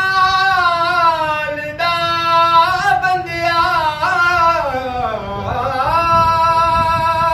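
A single unaccompanied voice singing a naat in long, ornamented held notes, sliding down in pitch about five seconds in and rising back to a steady held note near the end.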